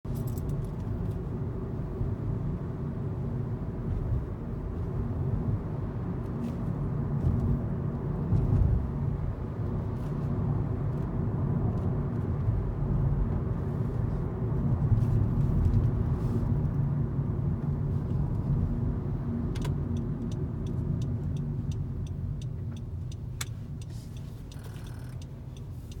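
Cabin noise of a 10th-generation Honda Civic on the move: a steady low road and engine rumble that swells a little now and then. A series of sharp ticks comes in during the last few seconds.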